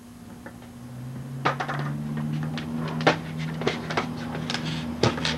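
Skateboard wheels rolling on a concrete driveway, a steady rumble that starts about a second in, with several sharp clacks of the board and trucks.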